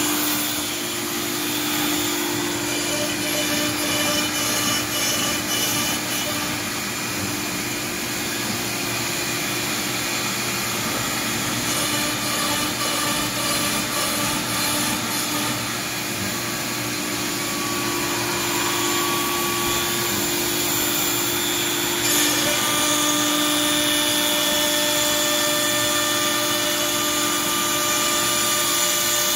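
CNC router spindle running steadily while its bit mills 1/2-inch MDF: a constant whine with the hiss of cutting. The sound turns a little brighter about two-thirds of the way through.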